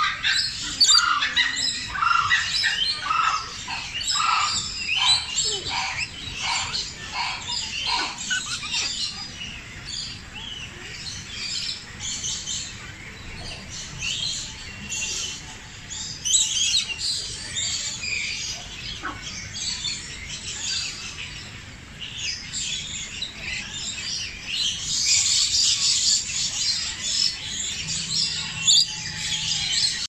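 Many birds chirping and calling together, a dense overlapping chorus. A run of short calls repeats about twice a second over the first several seconds, and the high chirping grows thicker and louder near the end.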